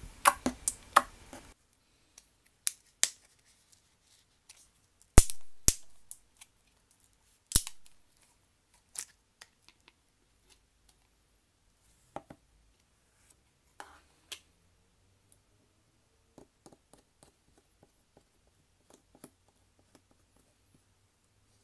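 Scattered sharp clicks and knocks of small objects being handled and set down, with a quick run of clicks in the first second and a half and fewer, fainter ticks toward the end.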